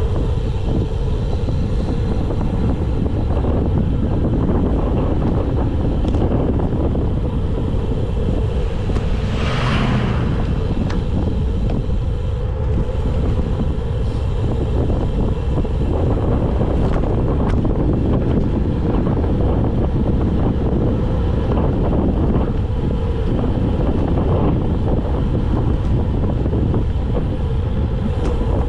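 Wind rushing over a handlebar-mounted camera's microphone, with road and tyre noise, as a road bike coasts downhill at about 20 mph. A brief higher hiss stands out about ten seconds in.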